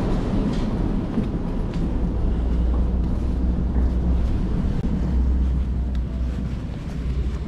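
A steady low rumble with a few faint ticks through it.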